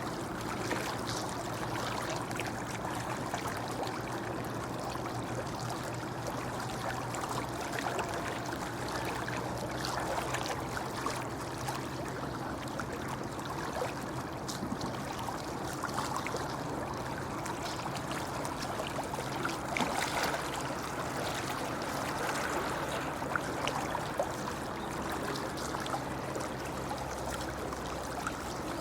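Shallow river babbling, a steady even flow of running water.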